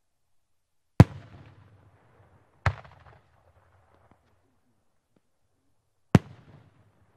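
Three loud bangs from large aerial firework shells, each trailing off in a rumbling echo: one about a second in, a second one under two seconds later, and a third near the end.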